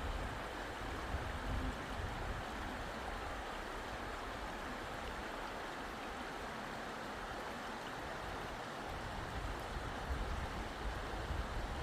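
Steady rushing of flowing water, with an uneven low rumble underneath.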